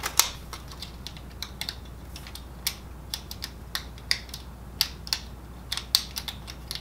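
Irregular sharp clicks and taps as hands seat wire connectors and route cables into a Kyocera FS-4200/4300 laser printer, with a low steady hum underneath.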